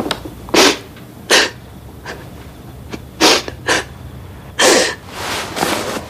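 A woman sobbing, in short breathy gasps a second or so apart, with longer shaky sobs near the end.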